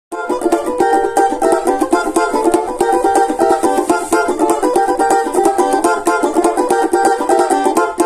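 Four-string Brazilian pagode banjo (cavaquinho-style banjo) strummed in a quick, rhythmic samba groove, many chord strokes a second.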